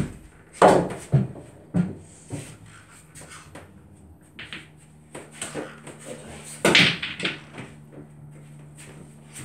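Pool balls being struck with a cue and knocking into each other: several sharp clacks in the first two seconds and the loudest knock about two-thirds of the way through.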